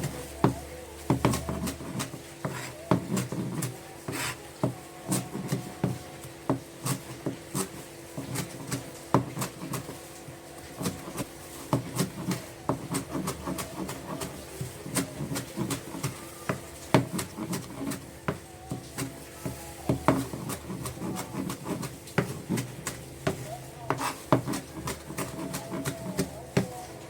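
Kitchen food preparation on a wooden surface: irregular knocks and taps, several a second, with some scraping and rubbing between them, over a faint steady hum.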